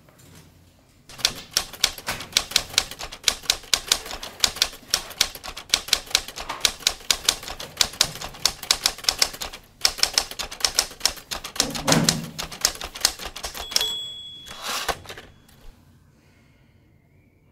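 Typewriter sound effect: rapid key clacks, several a second, with a short pause about ten seconds in. Near the end come a brief bell-like ding and a last clatter.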